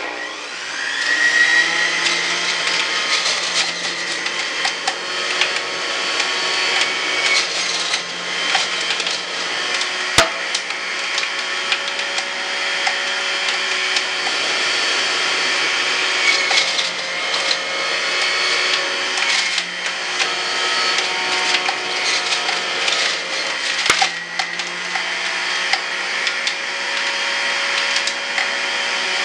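Electric centrifugal juicer starting up with a rising whine, then running loudly as leafy greens are pushed down its feed chute and shredded.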